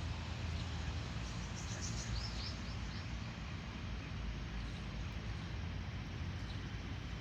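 A series of short, high bird chirps between about one and three seconds in, over a steady low rumble of background noise.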